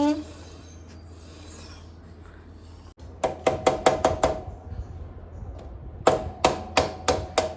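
Metal being tapped with a hammer, in quick runs of sharp ringing strokes at about five a second: two bursts of six or seven blows, the second about a second and a half after the first. Before them there is only a low steady hum.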